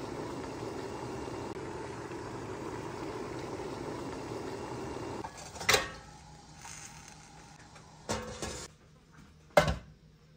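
A steady rushing noise from the stovetop stops about five seconds in. Three sharp clatters of kitchenware follow, the last one the loudest.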